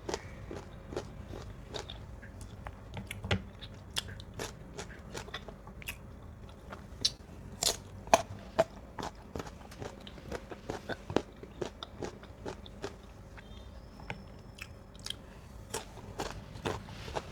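Crisp, crunchy bites and wet chewing of firm, sour mango slices close to the microphone, an irregular run of sharp crunches.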